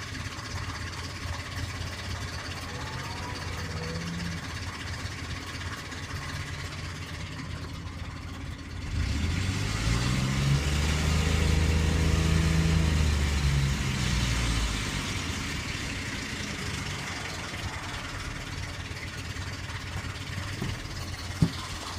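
1998 Ford Explorer engine idling with a clicking/ticking noise, revved up once about nine seconds in, held for a few seconds, then settling back to idle. The ticking comes from a broken timing chain tensioner. A single sharp click sounds near the end.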